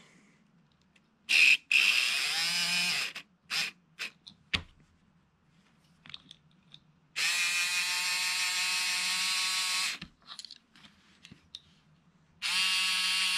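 Small electric motor and drive train of a Life-Like HO-scale locomotive whining as it is powered in bursts on a bench test of its newly fitted 3D-printed drive shaft and couplers: a few short spurts, then a run of about three seconds and another of about two near the end.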